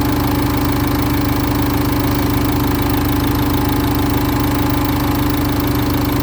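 Nissan Juke's engine idling steadily with an even hum and fast low pulsing, running while a combustion leak test on its head gasket is under way.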